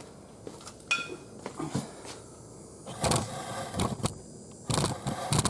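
Rubber drain hose being worked onto the oil drain nipple of a riding mower's engine block, giving short squeaks and scraping, rubbing sounds with small clicks of handling.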